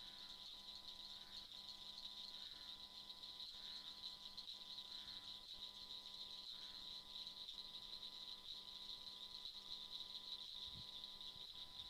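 Faint, steady high-pitched night chorus from calling insects or frogs, with a low steady hum and soft ticks about once a second underneath.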